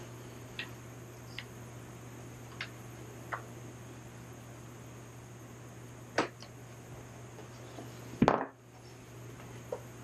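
Scattered light clicks and taps of hands handling a 2008 aluminium iMac, with one louder knock and clatter about eight seconds in as the computer is moved. A steady low hum runs underneath.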